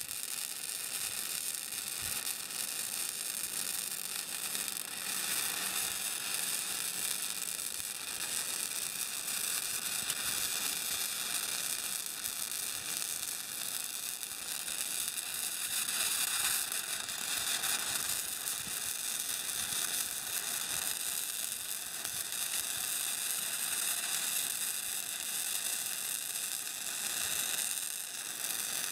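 Wire-feed welding arc crackling and sizzling steadily as a bead is run on steel.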